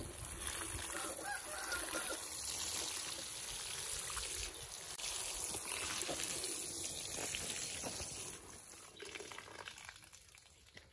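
A fine spray of water showering onto a potted plant and its pine-needle mulch, a steady splashing patter that stops about eight seconds in.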